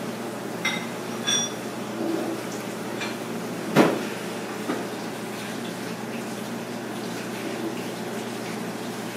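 A handful of short clinks of dishes and cutlery, one of them briefly ringing and the loudest about four seconds in, over a steady hum of room noise.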